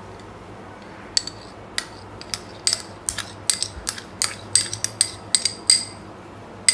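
Steel spoon clinking against metal cookware: a quick, irregular series of sharp metallic clinks starting about a second in, as fresh cream is spooned into the pan of curry.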